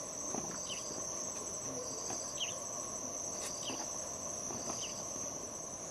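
Insects trilling steadily: a constant high-pitched buzz with a faster pulsing trill over it, and a short high chirp about once a second.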